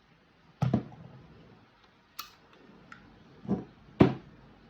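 Metal and plastic clicks and knocks of a Tokyo Marui Hi Capa gas blowback pistol being handled as its slide is taken off: a knock under a second in, a sharp click at about two seconds, then a duller knock and a loud sharp click near the end.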